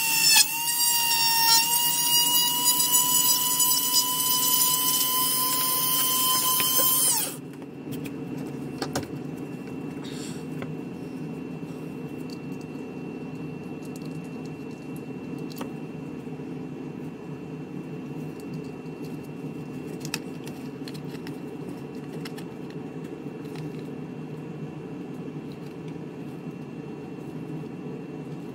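Flex-shaft rotary tool drilling a hole through a plastic model hull. Its high whine creeps slightly up in pitch and cuts off about seven seconds in. After that a steady low hum remains, with light clicks and taps as plastic parts are handled.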